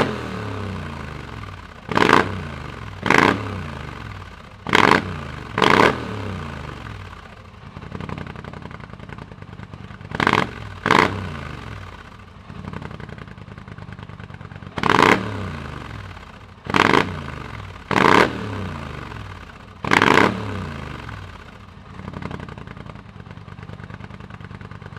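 Polaris Sportsman 850 XP ATV's twin-cylinder engine through a custom aftermarket exhaust, idling and blipped about ten times in quick throttle stabs, often in pairs, each rev dropping straight back to idle. It settles at a steady idle for the last few seconds.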